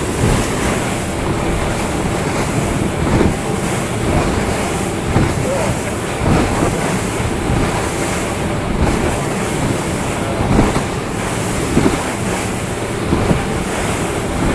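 Boat under way on open water: a steady rumble of motor and water noise, rising and falling a little.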